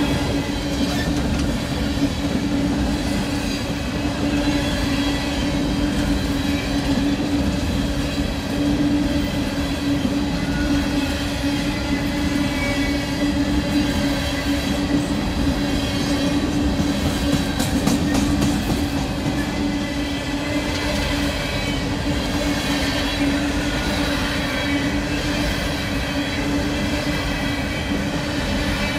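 Freight train cars rolling past close by: a steady rumble of steel wheels on rail with a continuous tone held throughout and a brief run of clicks about seventeen seconds in.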